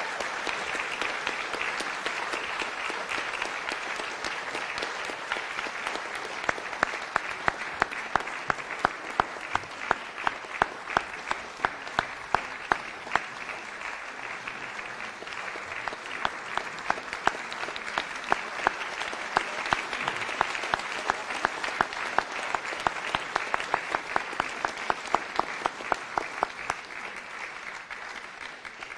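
Audience and stage party applauding steadily, with one nearby pair of hands clapping sharply about twice a second through the middle stretch. The applause dies away at the very end.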